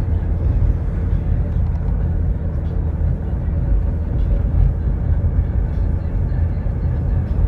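Steady low rumble of engine and tyre noise inside a Chevrolet Cobalt cruising at highway speed.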